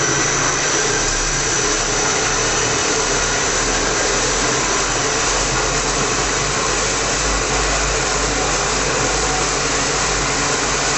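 Liquid detergent mixing tank running, its agitator motor giving a steady machine drone as the paddle stirs the detergent. A thin high tone sits over it and fades about halfway, and a low rumble comes in about a second in.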